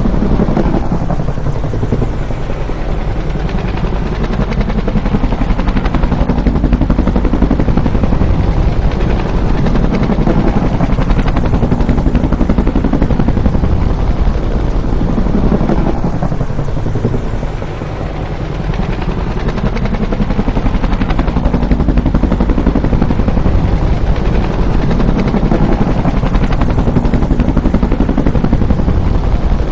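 Bell UH-1 "Huey" helicopter running loud and steady, its rotor and turbine noise rising and falling in slow sweeps as it passes, easing off briefly a little past halfway.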